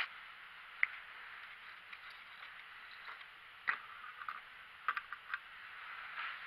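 Metal radiator pressure cap twisted off by hand: a few sharp clicks and knocks, a small cluster of them about five seconds in, over a steady background hiss.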